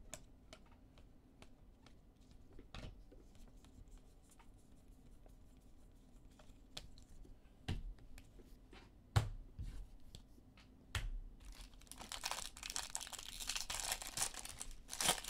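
Baseball cards handled with scattered light clicks and taps, then from about three-quarters of the way in a foil card pack wrapper crinkling as it is torn open.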